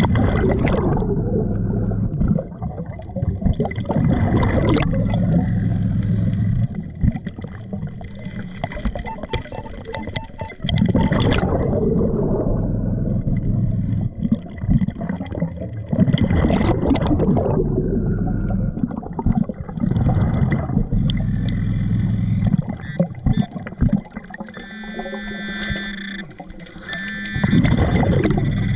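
Scuba diver breathing through a regulator underwater: a gurgling rush of exhaled bubbles every few seconds over a steady low hum.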